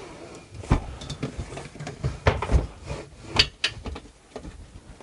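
Wooden slats of a caravan sofa-bed base knocking and clattering as the seat is pulled out and converted into a bed: about half a dozen sharp wooden knocks, the loudest between about two and four seconds in.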